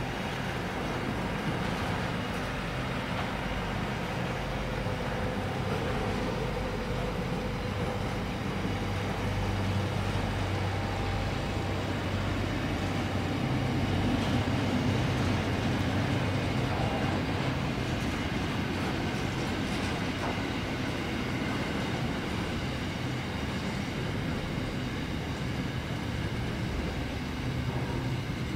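Container freight wagons rolling past at close range: a steady rumble of steel wheels on rail, swelling slightly about halfway through.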